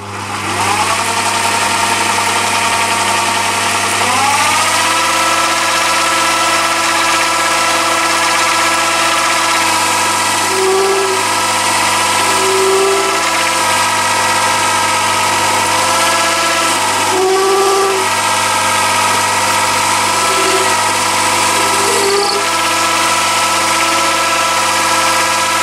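Mini lathe's motor and drive starting up and then running steadily with a whine, its pitch rising near the start and again about four seconds in before it settles. Brief higher notes come and go as the carbide insert tool cuts the mild steel bar.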